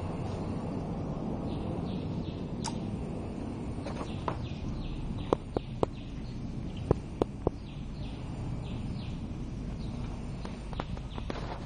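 A husky puppy playing on a tiled floor: two quick runs of three sharp taps about halfway through, over steady background noise, with faint high chirps repeating.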